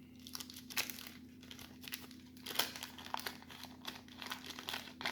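A 1990 Bowman baseball card wax pack's wrapper being torn open and handled, with irregular paper crinkling and crackling.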